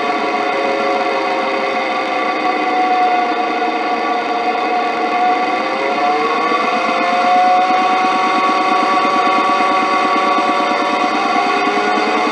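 Motor-driven round belt running over plastic V-groove pulleys and ball-bearing guide rollers on a steel plate, picked up by a piezo contact element: a steady metallic ringing hum of several tones over bearing rumble. A few of the tones slide in pitch around the middle, and a rapid, even throbbing sets in underneath from about six seconds in.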